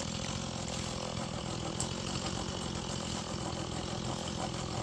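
Stihl chainsaw engine running steadily, holding an even pitch without revving up or down.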